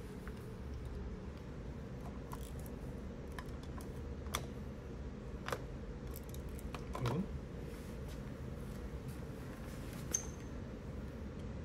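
Scattered plastic clicks and knocks as a rubber stamp is handled and pressed onto a card in a plastic stamp holder. The loudest is a dull knock about seven seconds in, over a steady low hum.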